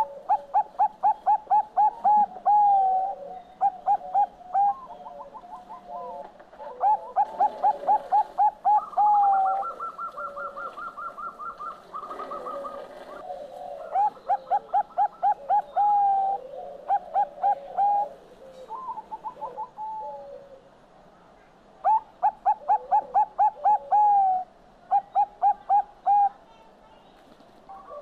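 Zebra dove (Bangkok-type perkutut) singing: phrases of quick, rising staccato coos, each about two seconds long, repeated with short pauses between. A higher, faster trill sounds briefly about a third of the way in.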